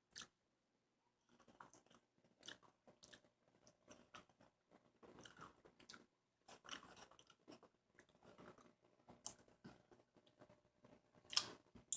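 Faint close-up chewing of a burger: scattered soft mouth clicks and crunches, with a louder burst near the end.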